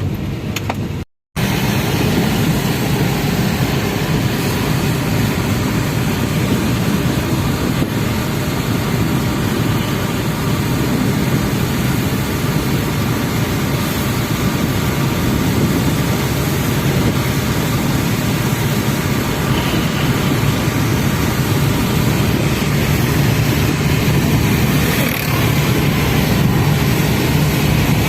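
Maruti Ertiga driving steadily along a rain-wet highway: a continuous rush of tyre, road and engine noise. It is cut to silence very briefly about a second in.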